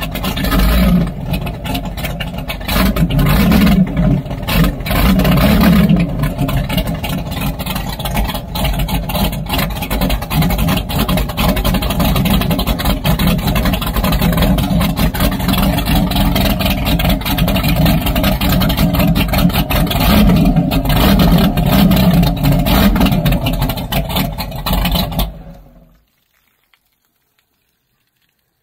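Twin rebuilt marine engines of a 38-foot Donzi ZRC running on the trailer on a hose flush, their water-cooled exhausts spitting water out of the transom tips, with a few louder surges of revving. The engines are shut off about three seconds before the end.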